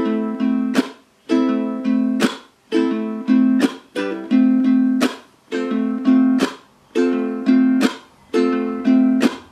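Low-G ukulele fingerpicked in a repeating thumb-thumb-chunk pattern on an A minor chord. Ringing thumbed notes are cut by a percussive muted strum, the "chunk", about every second and a half, seven times in all.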